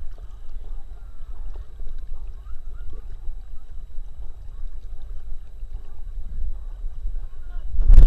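Water sloshing and lapping against a camera strapped to a swimming dog, over a steady low rumble. Near the end, a sudden loud rush of splashing and spraying water.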